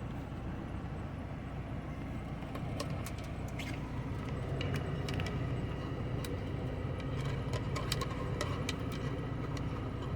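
Steady low rumble of an idling engine, with scattered light clicks and clinks from about three to nine seconds in.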